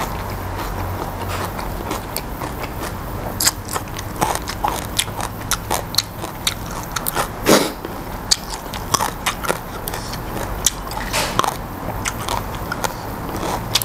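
Close-miked chewing with many sharp crunches scattered through: a person biting fresh pea eggplants off the cluster and eating them raw.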